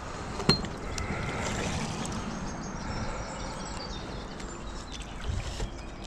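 Water sloshing and splashing while a hooked pike is being fought, with one sharp click about half a second in.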